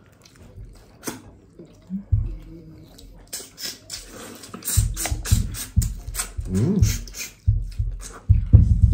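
Close-up eating sounds: boiled shrimp and crab shells crackling as they are peeled and broken by hand, mixed with wet chewing. A rapid run of crunchy clicks fills the middle of the stretch, with some dull thumps toward the end.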